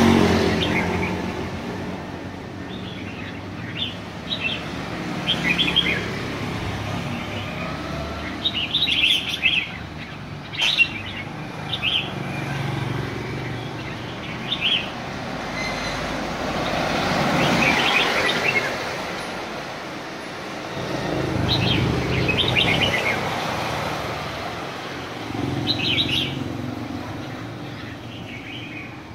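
Caged red-whiskered bulbuls singing in short, separate chirping phrases. Passing traffic swells up and fades several times underneath, loudest right at the start.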